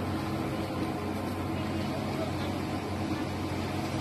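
Concrete mixer truck's engine running steadily at a constant speed while it discharges concrete down its chute.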